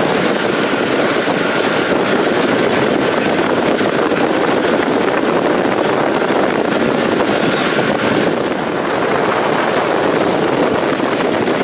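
Motorboat under way at speed, heard from on board: steady engine noise mixed with the rush of water and wind on the microphone.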